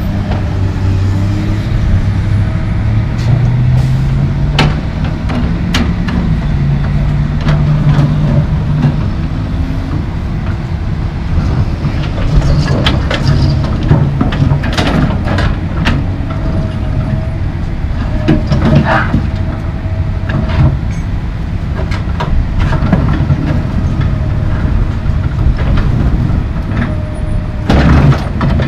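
Komatsu PC220 LC track excavator's diesel engine running under hydraulic load, its pitch climbing in the first few seconds as the boom swings, with repeated clunks and scrapes of broken concrete sidewalk slabs against the steel bucket. A burst of heavier knocks comes near the end.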